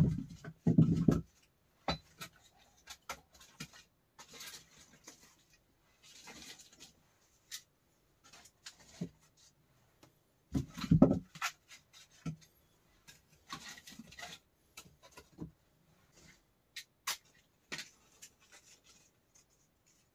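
Irregular knocks, clicks and scraping of objects being handled in a small enclosed space, with two heavier low thumps, one at the start and one about eleven seconds in.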